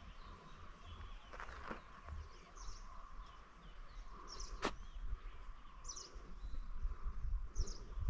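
Forest ambience: a bird calls with short high chirps about four times, over a steady hiss and low rumble. One sharp click a little past the middle.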